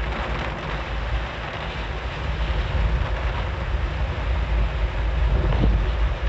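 Heavy rain pelting a car's windshield and roof, heard from inside the moving car over a steady low rumble of road and engine noise.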